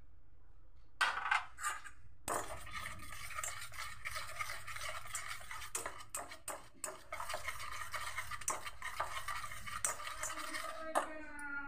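A wire whisk beating gram-flour batter in a stainless steel bowl: a few clicks about a second in, then continuous fast scraping and clicking of the wires against the metal as Eno fruit salt is whisked into the batter.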